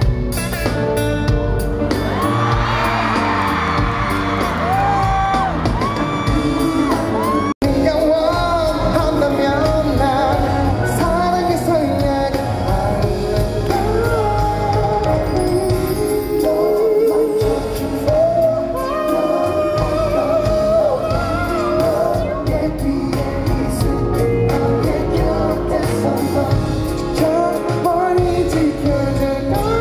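Male pop vocalist singing live into a handheld microphone over band accompaniment, with the echo of a large arena. The sound cuts out for an instant about seven and a half seconds in.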